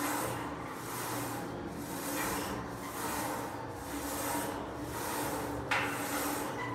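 Smith machine bar carriage sliding up and down its guide rails through split-squat reps: a rasping, rubbing noise that swells about once a second with each stroke. There is a single sharp click near the end.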